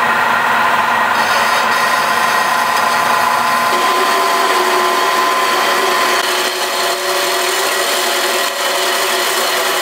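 Metal-cutting bandsaw running steadily through a stainless exhaust tube bend, a continuous loud whine with ringing tones from the tube.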